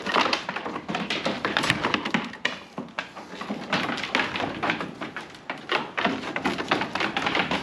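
Sheep hooves clattering and knocking on a hard floor in a rapid, irregular patter, as the rams shift about in the pen.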